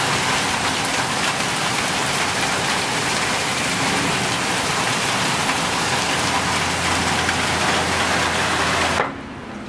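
Heavy rain mixed with hail pelting a concrete sidewalk and street, a dense steady hiss that cuts off suddenly near the end.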